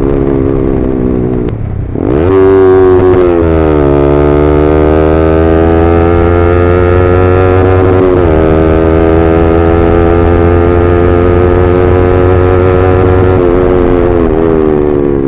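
Yamaha R15M's 155 cc single-cylinder engine running through an SC Project full-system exhaust while ridden. The pitch dips and then climbs sharply about two seconds in, settles, then holds with a slow rise, with a short dip around eight seconds in.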